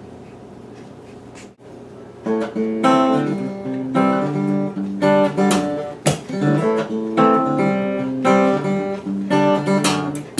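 Acoustic guitar playing the intro of a song, strummed chords coming in about two seconds in after a short lull.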